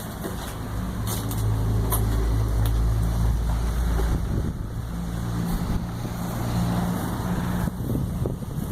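A motor vehicle engine running with a low, steady rumble; its hum shifts in pitch about halfway through. Wind gusts on the microphone near the end.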